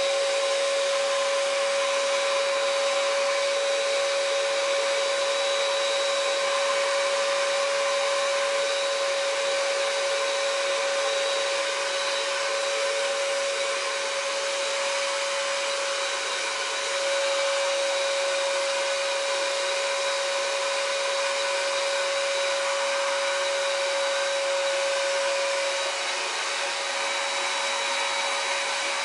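Patriot SG 550 electric paint sprayer's blower unit running steadily, pushing air down the hose to the spray gun, with a strong steady whine. The whine shifts slightly about halfway through and changes again near the end.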